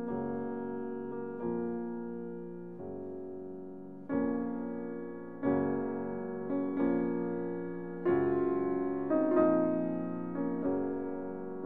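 Background piano music: slow, gentle chords that ring out and fade, a new one about every second and a half.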